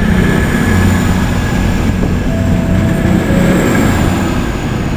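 CrossCountry Voyager diesel multiple unit moving past along the platform: its underfloor diesel engines drone steadily and loudly over the rumble of the wheels, with two short faint high tones about halfway through.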